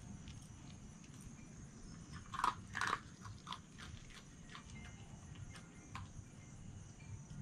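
Red fox chewing food, a run of small crunches and clicks, with two louder crunches about two and a half and three seconds in.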